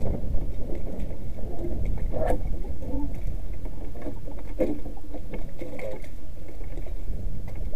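Steady wind rumbling on the microphone over the choppy lake around the canoe. A few light knocks and clicks come through, the clearest about two seconds and about four and a half seconds in.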